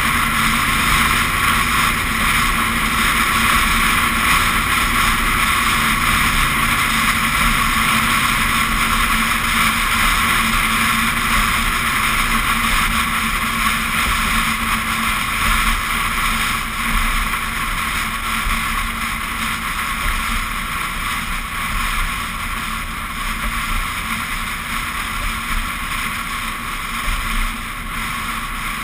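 Steady rush of wind and road noise on an outside-mounted action camera on a vehicle at highway speed, with a low hum of engine and tyres underneath.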